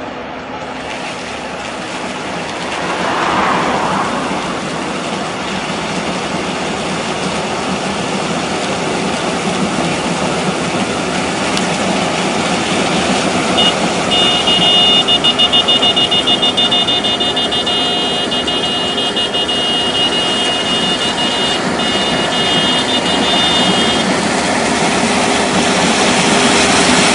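Combine harvester running steadily while harvesting standing corn: engine and threshing machinery with a continuous mechanical hum. A high steady tone, fluttering at first, sounds for about ten seconds in the middle.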